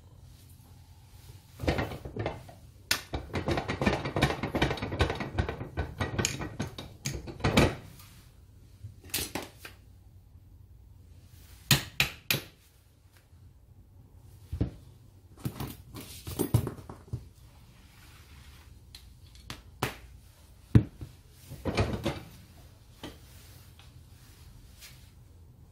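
Metal parts of a 4-inch angle grinder's gear head and armature being handled and set down on a steel workbench. About three seconds in comes a dense clicking rattle lasting several seconds, then scattered sharp metal clinks and knocks.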